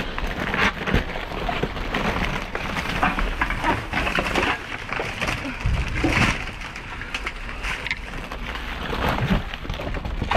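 Rummaging through dumpster trash: a steady crinkle and rustle of packaging, with many small clicks and knocks as boxes are handled.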